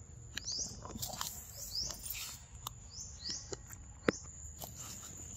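A bird chirping repeatedly with short rising calls, over scattered soft clicks and taps; one sharp click about four seconds in is the loudest sound.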